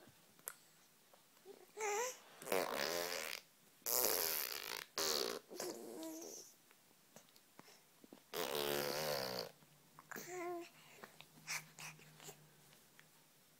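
Baby girl babbling in short bursts separated by pauses, mixing breathy spluttering noises with squeaky vocal sounds that slide up in pitch.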